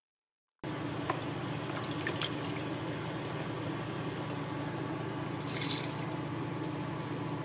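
Steady hum and liquid hiss from the pot of chili base heating on the cooktop, cutting in about half a second in, with a few small clicks. Just before six seconds comes a brief splash as wine-loosened chili paste is tipped from the glass blender jar into the pot.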